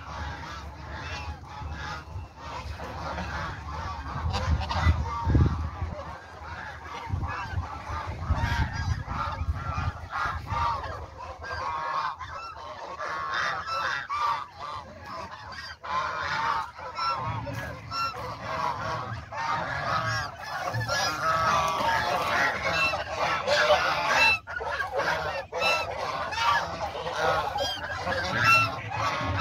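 A flock of domestic geese honking, many short calls overlapping without pause, growing denser and louder in the second half.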